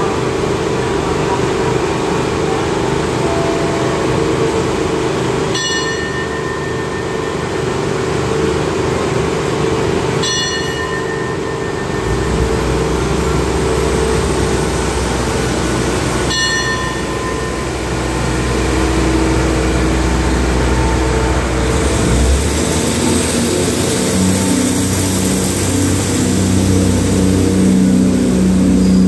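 Diesel railcar express train idling at the platform, its engines running steadily, with three short ringing tones a few seconds apart. About halfway through a deep low rumble sets in, and near the end the engines rise in pitch as the train starts to pull away.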